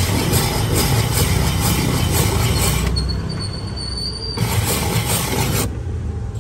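Rumbling, rushing noise of a moving vehicle, with a thin high squeal about three seconds in that lasts a second and a half.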